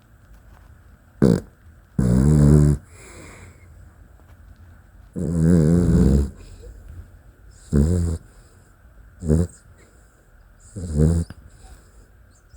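Dachshund snoring loudly in its sleep: six buzzy snores at uneven gaps, the second and fourth drawn out to about a second each, the others short.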